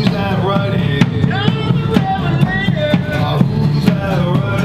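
Live acoustic guitar and drum kit playing together, a steady beat of drum hits with the bass drum under a gliding sung melody line.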